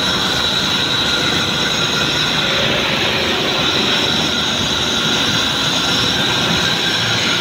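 Steady road traffic noise inside a concrete underpass, with motorcycles and vans driving through.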